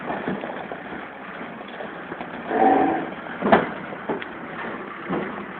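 Dieci telehandler driving slowly over gravel, its diesel engine running. A short pitched tone comes about two and a half seconds in, and a sharp knock, the loudest sound, about a second later, with lighter clicks after it.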